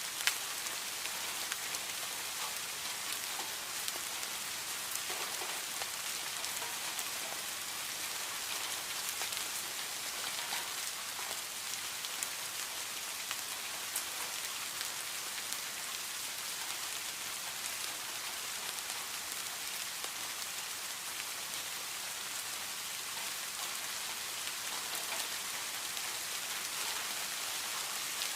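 Heavy rain falling steadily, an even hiss with fine scattered drop ticks.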